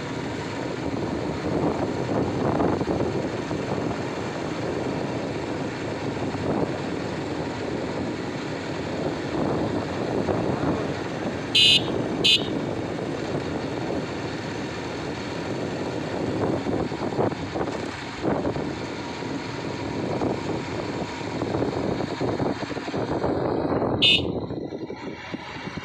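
Bajaj Pulsar motorcycle running along a road, heard from on the bike, with wind rushing over the microphone. Two short high-pitched sounds come close together about twelve seconds in, and another comes near the end.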